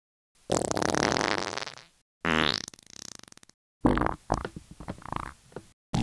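Farts, one after another: a long pitched one, then a shorter one that opens with a rising squeak, then a sputtering string of short bursts, and another starting just at the end.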